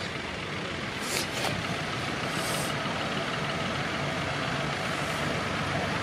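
New Holland tractor engine running steadily under load as it pulls a plough through the soil. Two short hisses come about a second in, and a third near the middle.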